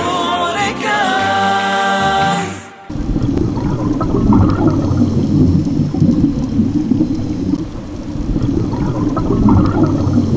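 An unaccompanied sung chant (nasheed) ends on a held chord. About three seconds in it cuts abruptly to a loud, steady, low rumbling, rushing noise.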